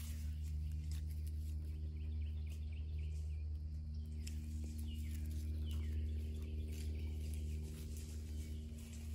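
A steady low hum with short falling bird calls repeated every second or two above it. Dogs' paws patter and rustle in dry pine needles.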